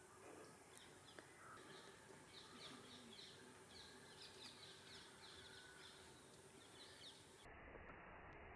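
Faint, rapid bird chirps repeating over a low hiss, cutting off suddenly about seven and a half seconds in.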